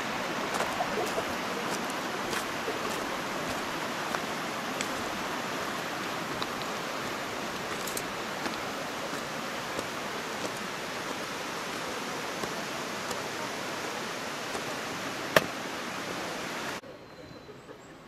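Steady rush of a mountain river running over boulders in a gorge, with one sharp click about fifteen seconds in. The rushing cuts off abruptly near the end, leaving a much quieter background.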